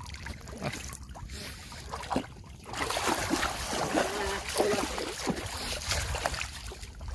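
Water splashing and pouring, loudest from about three seconds in, with a few faint voices behind it.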